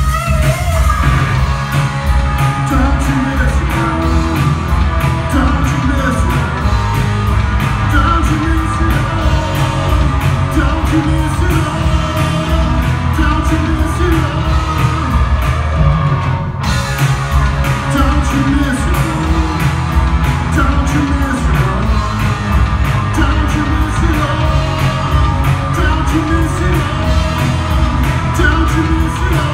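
A live rock band playing loudly and steadily: electric guitar, bass guitar and drum kit, with a sung vocal line, heard from the audience in a large hall.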